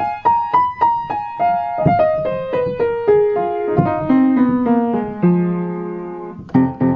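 Background music: a piano-like keyboard playing a melody that steps down in pitch note by note, settling on a held low note, with a new phrase of quicker repeated notes starting near the end.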